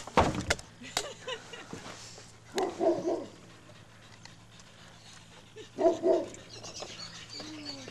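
A dog gives two short barks about three seconds apart, after a sharp knock at the start.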